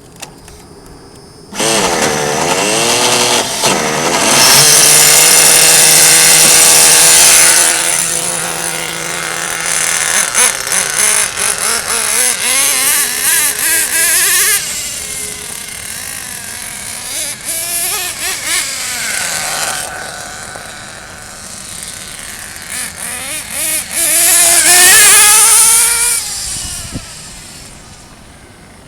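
Nitro RC car's small glow-fuel engine running at high revs as the car is driven. It comes in suddenly, and its pitch rises and falls with the throttle. It is loudest twice, a few seconds in and again near the end, then fades away.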